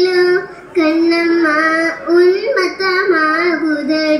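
A young girl singing a Tamil poem solo with no accompaniment, in long held notes with a short breath about half a second in.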